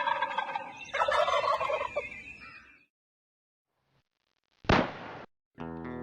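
Wild turkey gobbling twice, each gobble trailing off into echo. After a pause of about two seconds comes a single sharp bang, and music starts just before the end.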